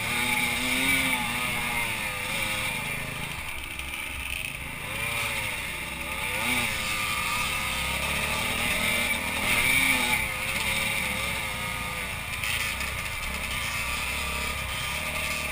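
Dirt bike engine being ridden hard on a dirt trail, its pitch rising and falling again and again as the throttle is worked.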